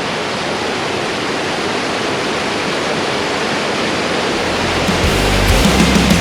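A waterfall rushing steadily. About five seconds in, a loud, heavy rock music track with a deep bass starts over it.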